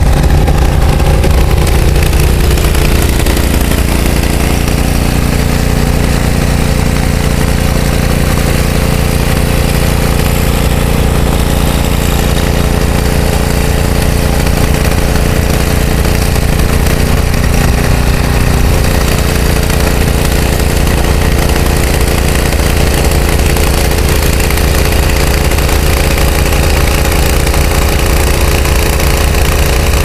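Walk-behind snowblower's small gasoline engine running steadily at a constant speed.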